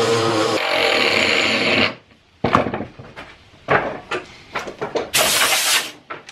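Angle grinder with an abrasive disc grinding down splintered plywood and fibreglass cloth, running steadily and stopping about two seconds in. Scattered knocks and rustles follow, and a burst of hiss near the end.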